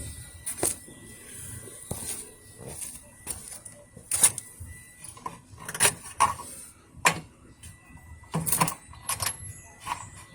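Irregular clicks and knocks from hand work on a small generator, with no engine running.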